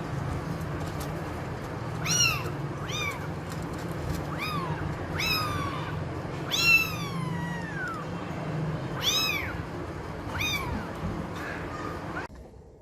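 A cat meowing repeatedly: about seven high-pitched meows that rise and fall, one of them longer and drawn out, over a steady low hum. The sound cuts off suddenly near the end.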